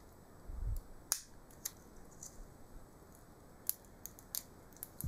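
Faint, scattered clicks and crinkles of plastic wrap and tape being peeled by hand off a lithium-ion battery pack, with a soft low thump about half a second in.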